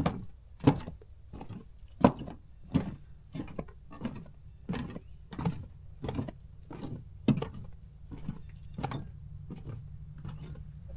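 Footsteps on a wooden boardwalk, a dull knock on the planks about three times every two seconds, over a steady low hum.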